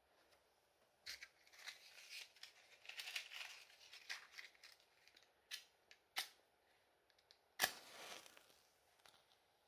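Faint scratching and clicking of a match and matchbox being handled, then one sharp strike of a match that flares up briefly, the loudest sound, about three-quarters of the way through.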